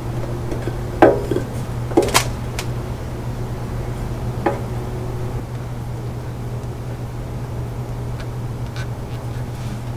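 A few light knocks and clicks as a new oil filter is handled and pushed up into its housing under a Unimog U1300L, the strongest about a second in and two more around two seconds. Beneath them runs a steady low background hum.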